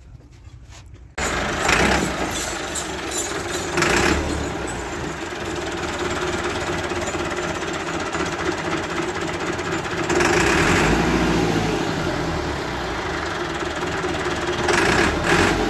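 Massey Ferguson 385 tractor's diesel engine running with a hard, knocking clatter. It comes in abruptly about a second in and swells louder a few times.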